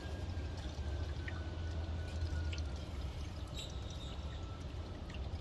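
Motor oil being poured from a bottle into the engine's oil filler: a steady pour with a faint, slowly falling tone, over a steady low hum.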